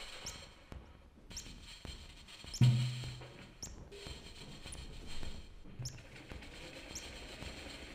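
Sparse improvised drum-and-electronics music: short high rising chirps come roughly once a second. A deep drum hit rings out about two and a half seconds in, and a softer one comes near six seconds.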